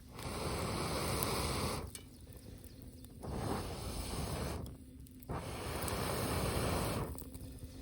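Three long bursts of rushing air, each lasting about a second and a half, with short pauses between them.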